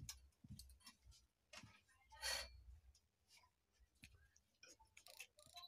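Near silence: room tone with a few faint clicks and a brief soft rustle about two seconds in.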